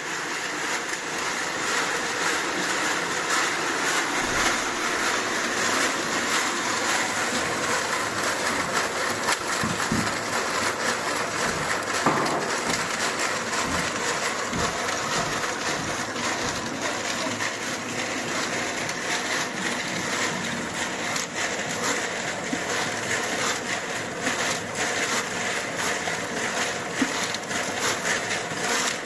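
Hand-turned gelato makers: metal canisters spun inside steel tubs packed with crushed ice, a steady crunching and rattling of ice against metal as the gelato mix freezes.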